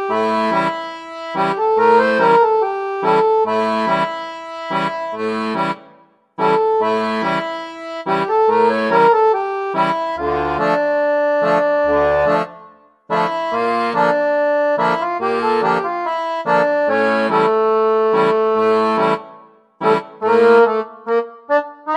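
Instrumental background music made of short, rhythmic chords, with brief breaks about six, thirteen and twenty seconds in.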